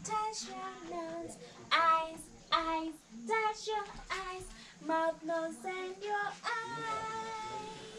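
A woman's voice singing a simple children's song to a baby, in short sung phrases with brief pauses, ending on a long held note.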